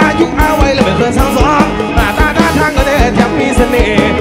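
Live rock band playing loudly through a concert PA: a male lead voice sings over electric guitar and a drum kit keeping a steady beat of about four hits a second.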